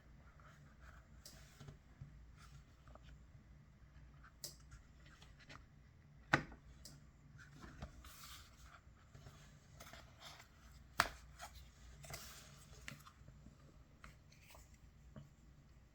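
Quiet handling of packaging: soft rubbing, scraping and rustling with small clicks, and two sharper clicks, one about six seconds in and one about eleven seconds in.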